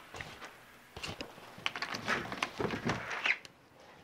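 A door being opened, with a series of latch clicks and knocks.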